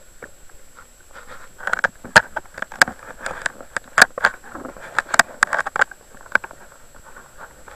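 Muffled water movement against an underwater camera's housing, with a flurry of irregular sharp clicks and knocks from about two seconds in to about six seconds in, over a faint steady high whine.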